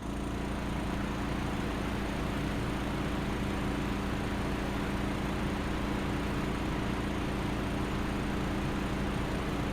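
Valtra tractor's diesel engine running at a steady, even speed, with no revving.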